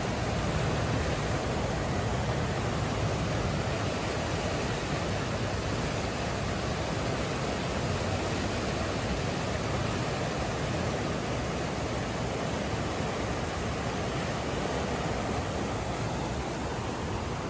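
Floodwater from a bayou over its banks rushing across a yard, a steady, even roar of moving water.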